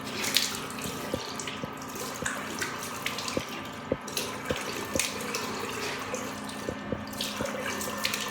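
Tap water running into a sink, with irregular splashes as the face is rinsed of soap.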